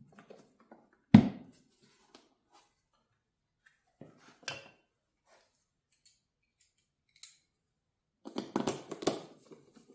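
Handling knocks and clatter as the generator's plastic covers and fittings are put back together: one sharp knock about a second in, a lighter one around four and a half seconds, and a quick run of clattering knocks near the end.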